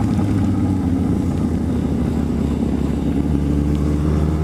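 Yamaha XJ6's inline-four engine running steadily at low road speed, its pitch nearly level, heard from the rider's own bike with road and wind noise.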